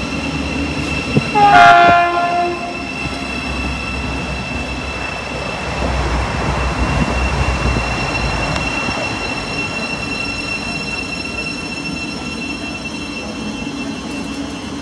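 Passing train sounds a short horn blast about a second in, the loudest moment, then its rumble builds to a peak midway and eases off.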